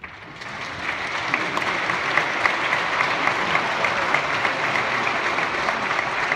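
Church congregation applauding: the clapping starts at once, swells over the first second, then holds steady.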